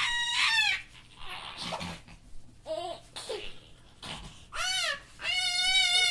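Young child laughing and squealing in short high-pitched bursts, with a long wavering squeal near the end.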